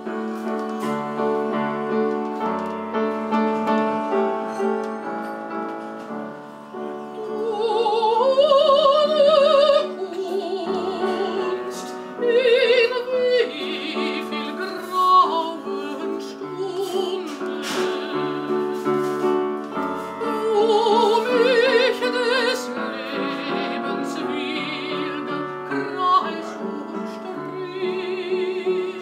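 Operatic soprano singing with a wide vibrato to the accompaniment of a Yamaha-built upright piano. The piano plays alone at first, and the voice comes in about seven or eight seconds in with several loud, held high notes.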